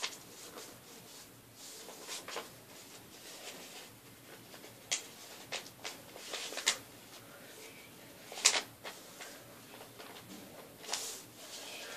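A sheet of paper being folded and creased by hand: scattered short rustles and crinkles, the sharpest about eight and a half seconds in.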